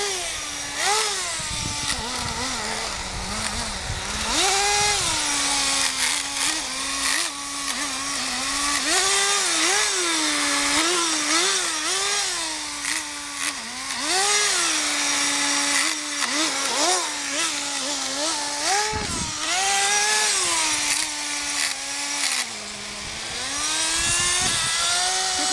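Kyosho Nitro Blizzard's small .11 two-stroke nitro engine running, its pitch rising and falling over and over as the throttle is opened and closed, with steady stretches at a lower running speed in between.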